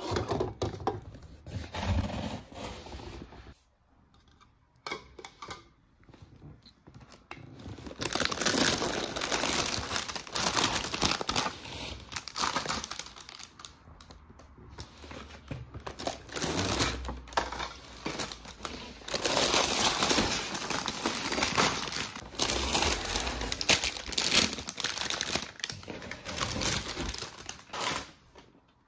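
Packaging being crinkled and handled while a toy set is unpacked, in irregular rustling bursts with quieter pauses between.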